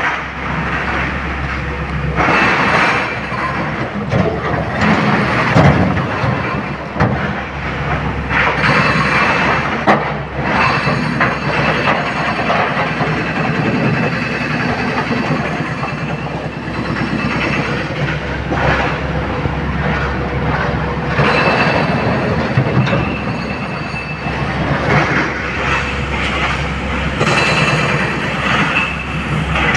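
Large SANY hydraulic excavator's diesel engine running steadily under load while its bucket digs into broken quarry stone and drops rock into a dump truck's body, with loud clattering and scraping of rocks several times.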